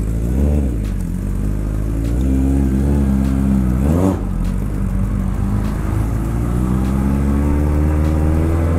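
1979 Honda CB750K's four-cylinder engine running under way as the bike pulls off. Its pitch rises, falls sharply about four seconds in, as at a gear change, then climbs slowly again.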